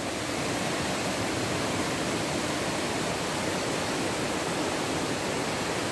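Shallow rocky river rushing over boulders and small rapids: a steady, even rush of water.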